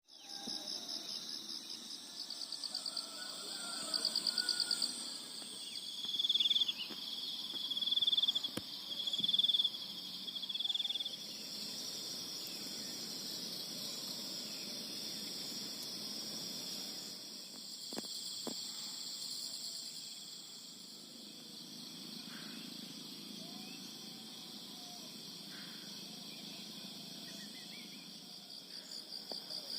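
Chorus of insects trilling steadily at a high pitch. A louder insect call sounds about five times in a row, starting around six seconds in.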